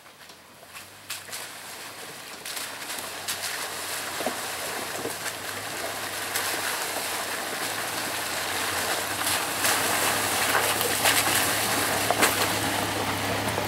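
Toyota Land Cruiser 80-series engine running as the truck crawls through a shallow, rocky creek, its tyres splashing water and knocking over stones with scattered sharp knocks. It grows steadily louder as it approaches.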